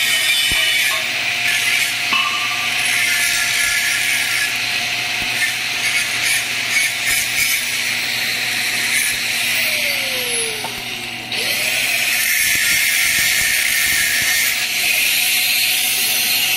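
Stick (shielded metal) arc welding with a 7018 electrode on a steel pipe joint: the steady crackling, frying hiss of the arc over a low hum. About eleven seconds in the arc sound fades briefly, then comes back sharply.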